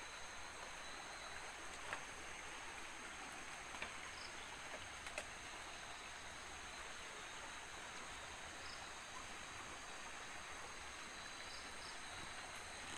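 Night insects calling steadily in the forest, with a constant high chirring over a soft hiss. A few faint clicks come and go about two, four and five seconds in.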